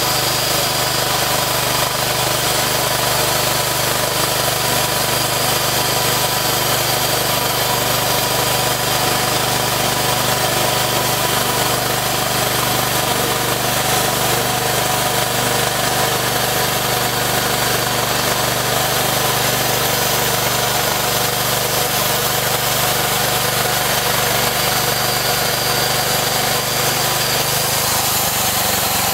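The petrol engine of a two-post bandsaw sawmill running steadily at speed while its band blade cuts lengthwise through a log. Near the end the engine's pitch drops.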